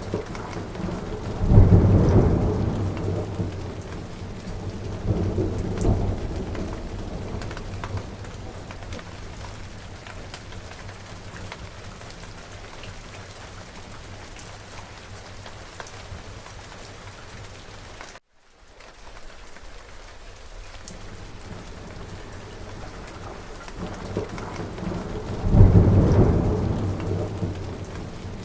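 Steady heavy rain, with rolling thunder rumbling twice early on and once again near the end. The thunder is the loudest thing heard. The sound drops out for a split second about two-thirds of the way through.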